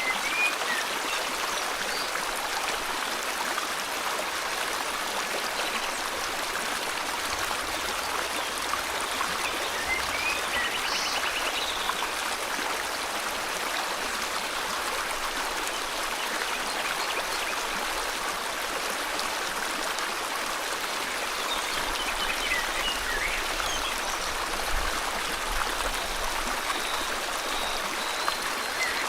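Steady rushing of a river's flowing water, with a few faint, brief bird calls now and then.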